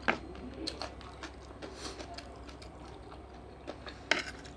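Spoon clinking lightly against a plate a few times, the loudest clicks right at the start and about four seconds in.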